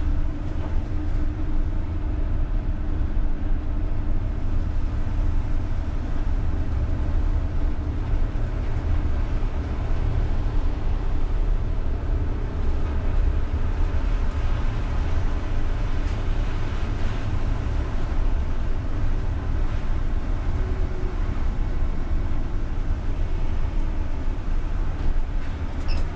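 In-cab sound of a UTTZ-6241.01 (MAZ-203T) trolleybus driving on a snowy road: a steady low rumble of tyres and running gear.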